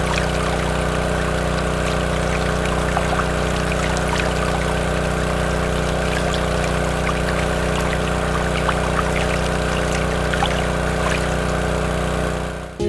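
A small electric water pump running steadily, with water pouring out of it.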